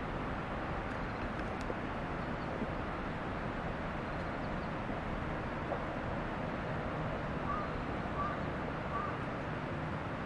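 Steady outdoor background noise, a low rumbling hiss with no single source standing out. Three faint short high chirps come about a second apart near the end.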